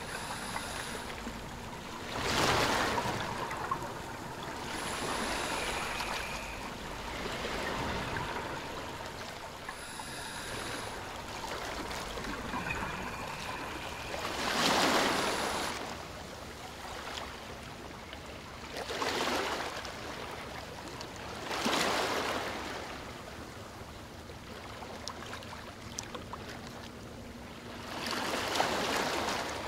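Underwater recording beside a scuba diver: a steady water hiss with a rushing surge every few seconds, typical of the diver's exhaled regulator bubbles, and a few brief high beeps early on.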